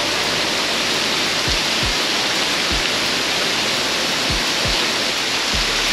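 Waterfall pouring: a loud, steady rush of falling water. Under it, a few low, soft drum beats from a background music track.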